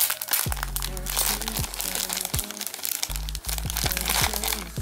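Clear plastic bag crinkling and crackling as it is handled, over background music with a steady bass line.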